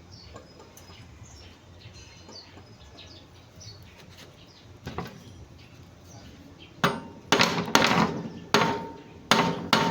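A steel striker used as a hammer, beating metal on metal in a quick run of about seven ringing blows, starting about seven seconds in.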